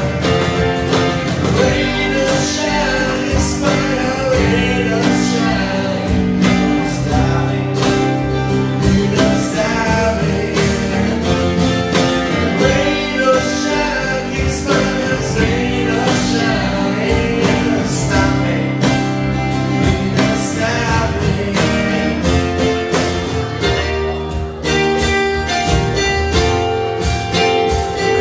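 Band music: an instrumental passage of the song, guitar to the fore over a steady drum beat.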